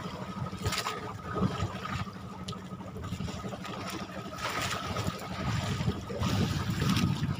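Outrigger fishing boat at sea: a steady low rumble with water sloshing and gusts of wind on the microphone.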